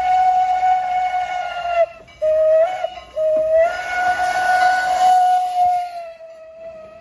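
Strasburg Rail Road #89's shrill former Pennsylvania Railroad banshee steam whistle blowing as the locomotive approaches and passes. A long blast ends about two seconds in, a short blast follows, and a final long blast fades out near the end. Each blast slides up onto its note, and the pattern is the close of a long-long-short-long grade-crossing signal.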